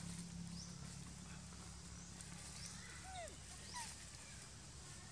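Faint animal calls: a few short squeaky chirps and one falling squeak about three seconds in, scattered over a low steady hum.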